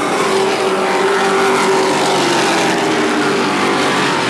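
A pack of race trucks running at speed together, their engines blending into one loud, steady drone with several overlapping engine tones.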